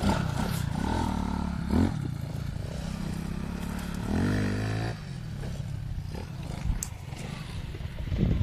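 ATV quad bike engine revving and easing off as it is ridden over dirt, with a rising rev about four seconds in that cuts off sharply.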